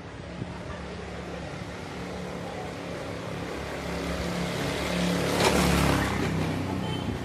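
A motor vehicle drives past, its engine and tyre noise growing louder to a peak about five and a half seconds in, then fading.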